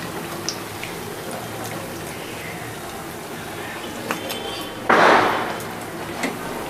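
Raw-banana bajji deep-frying in hot oil in a kadai, sizzling steadily, with a few light clicks of a metal slotted spoon against the pan and a louder rush of noise lasting about half a second, about five seconds in.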